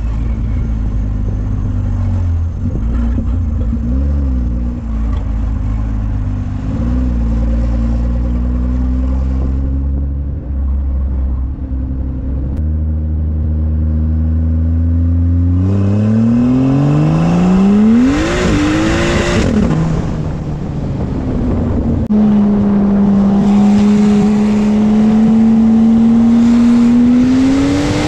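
BMW M3 with a single-turbo conversion on E85 fuel, its engine running steadily at low revs, then revved hard from about halfway with a steeply rising pitch. The pitch drops sharply at a gear change, holds steady, and climbs again near the end.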